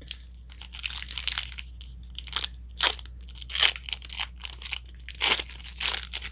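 Crinkling and rustling of plastic trading-card packaging being handled, in many short, irregular bursts.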